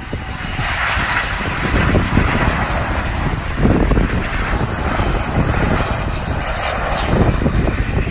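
Jet engines of an American Airlines Boeing 757-200 on final approach, a broad rumble with a high whine on top, growing louder over the first couple of seconds as the airliner comes in to land.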